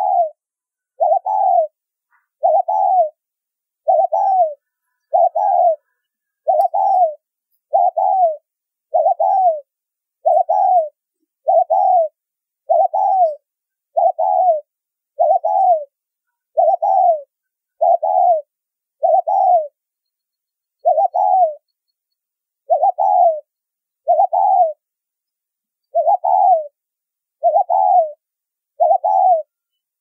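Spotted dove cooing over and over, about once a second: each short coo falls a little in pitch, with silence between and a couple of slightly longer pauses. This is the fast, insistent 'gáy thúc' calling that dove trappers use to lure wild doves.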